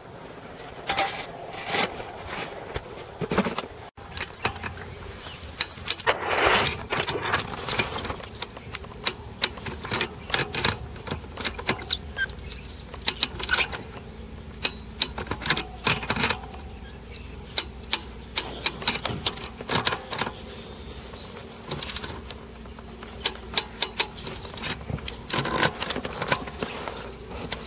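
Irregular metallic clicks and clinks of hand tools and bolts as the bolts of a stainless steel tapping saddle on a PVC water main are fitted and tightened, over a steady low hum.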